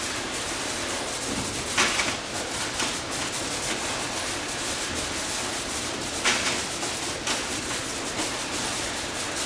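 REB-2 two-ram baler running as it compacts HDPE milk jugs: steady machine noise with two short, louder bursts about four and a half seconds apart.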